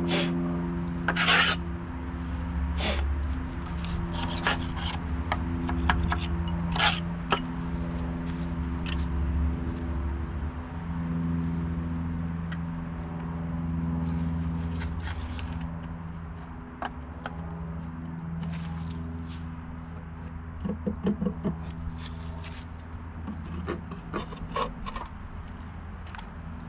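Scraping and rubbing of hand tools on engine parts, with scattered clicks and a quick run of scrapes about 21 s in, over a steady low hum.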